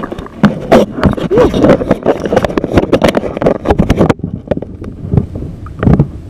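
Water sloshing and splashing right against the microphone, with knocks and scrapes of wet hands and the camera, as a caught fish is let go in shallow water. The splashing is busiest for the first four seconds, then thins out, with one more splash about six seconds in.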